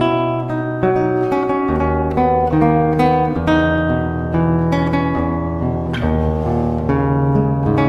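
Instrumental backing music: an acoustic guitar plucking and strumming chords over a bass line, between sung lines.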